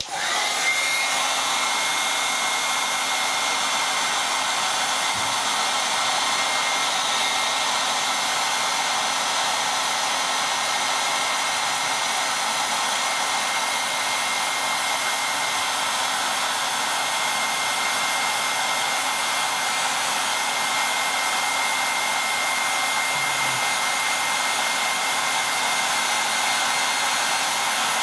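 Electric heat gun switched on, then blowing steadily, with a constant high whine over the rush of air.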